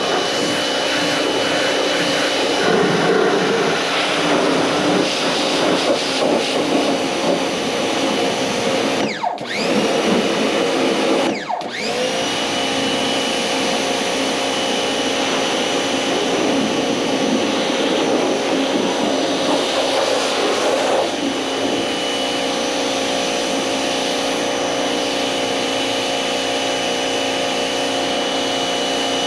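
Cat 1800 PSI electric pressure washer running, its electric motor and pump giving a steady whine over a hiss of spray. About nine seconds in the motor cuts out, and again about two seconds later, each time winding back up to speed, as the washer's auto-stop does when the spray trigger is released and squeezed again.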